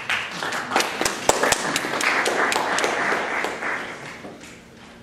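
Audience applauding: a short round of clapping that dies away about four seconds in.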